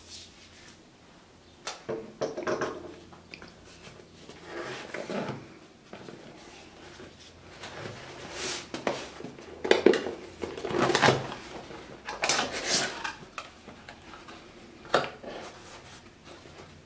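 Small cardboard box being handled and opened by hand: a scattered series of cardboard scrapes, rustles and light knocks as the flaps and lid are worked open.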